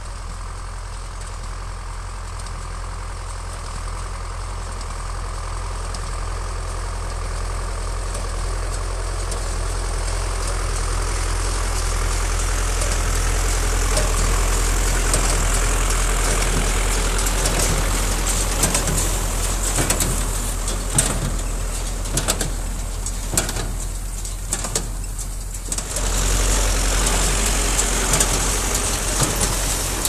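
Zetor 5545 tractor's diesel engine and a Massey Ferguson 20-8 conventional baler at work, growing louder as the rig approaches and passes close by. Through the second half, the baler's mechanism adds irregular sharp knocks and clatter over the engine.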